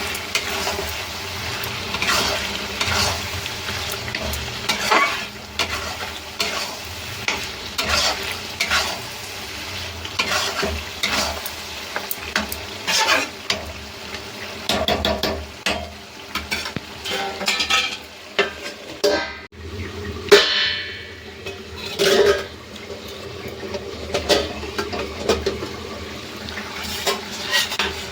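Chicken skin frying in a pan, sizzling steadily while a utensil stirs and scrapes against the pan again and again. About two-thirds of the way through there is one sudden louder burst.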